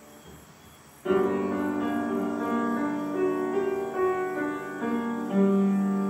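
Upright piano being played: a loud chord comes in suddenly about a second in, followed by sustained chords and melody notes.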